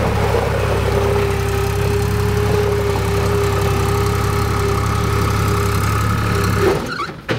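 John Deere 240 skid steer's diesel engine running steadily at idle, with a steady whine over it. It shuts off about seven seconds in, and a single knock follows.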